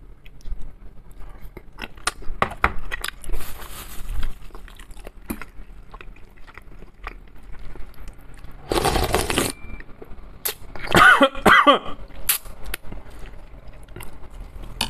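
Close-miked eating of canned mackerel and instant noodles: fork clicks and chewing, then a loud slurp of noodles about nine seconds in. A few seconds later come several throaty coughs as food goes down the wrong way.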